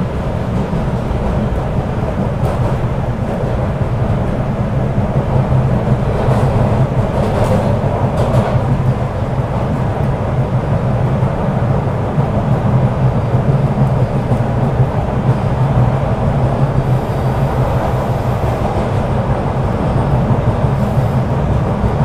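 MBTA Red Line subway train running through a tunnel, heard from inside the car: a steady low rumble and hum, with a brief rise of hissing wheel-and-rail noise about six to eight seconds in.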